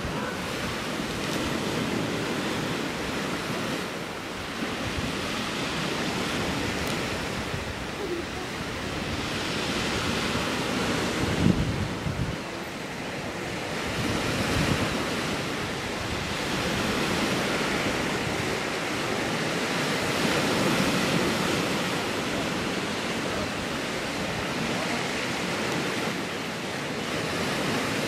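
Sea surf breaking and washing on a shingle beach, rising and falling every few seconds, with some wind on the microphone. A brief low thump about eleven seconds in.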